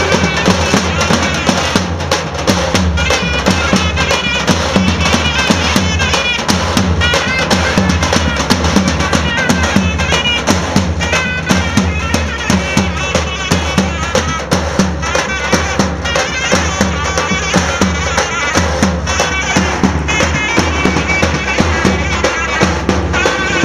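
Turkish davul-and-zurna folk music: large davul bass drums beaten with sticks in a steady beat under a zurna playing a wavering melody.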